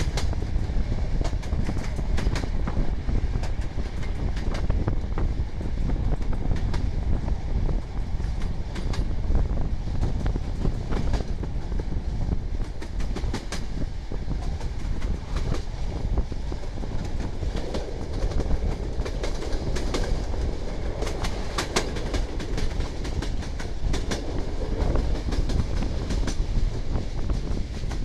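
Passenger train coaches running over jointed track: a steady rolling rumble with wheels clicking and clattering over the rail joints, heard from the coach's open window.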